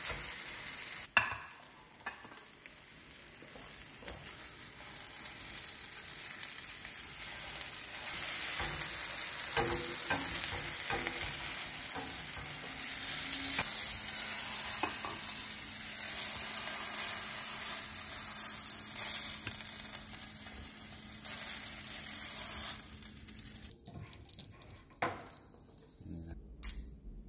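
Scrambled eggs sizzling in a hot nonstick frying pan while a silicone spatula stirs and scrapes them, with a sharp knock about a second in. The sizzle fades away near the end.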